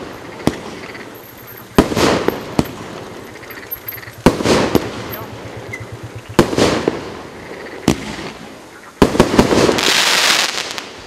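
A 30 mm, 19-shot fireworks cake firing shot after shot: sharp bangs of the shells launching and bursting every second and a half to two seconds, each trailed by the hiss of falling sparks. About nine seconds in, a brocade crown shell goes off with a rapid cluster of bangs and a dense burst of crackling, the loudest part.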